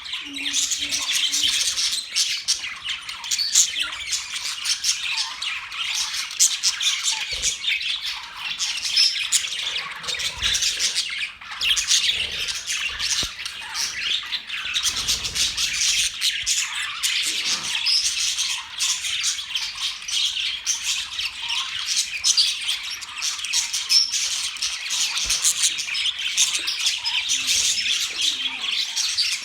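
A group of budgerigars chirping and squawking over one another in a continuous high-pitched chatter.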